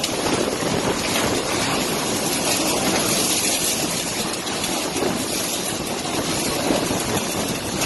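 Typhoon winds rushing steadily: a dense, unbroken noise across all pitches, with no clear tone or rhythm.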